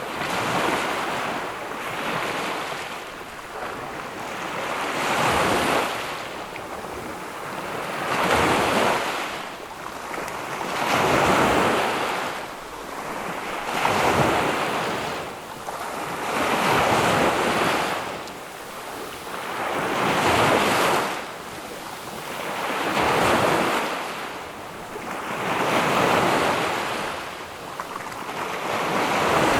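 Ocean waves breaking on a beach, a surge of surf about every three seconds that swells and then washes away.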